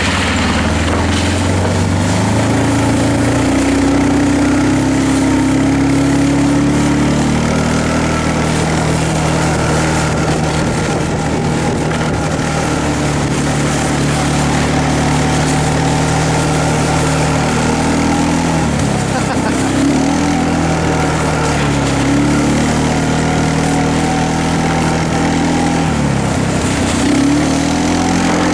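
Small petrol engine of the vehicle towing a sled, running steadily under load, its pitch dipping briefly and picking back up twice in the second half.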